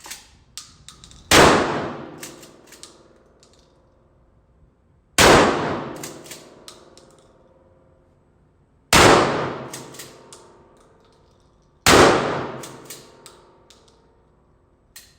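Shotgun fired four times as single shots, one every three to four seconds, each shot with a long fading echo, with small metallic clicks and clatter between the shots.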